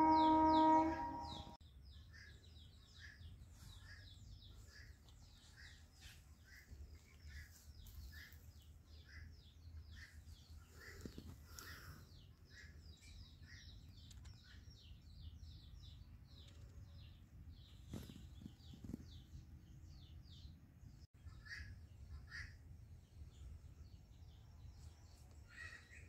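Small birds chirping in quick repeated notes, about two a second, over a low steady rumble. A loud held pitched tone sounds in the first second and a half.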